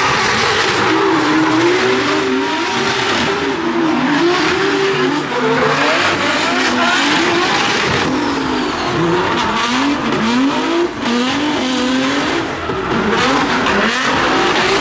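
Drift cars sliding sideways: engines revving up and down as the throttle is worked, over the screech and hiss of spinning tyres.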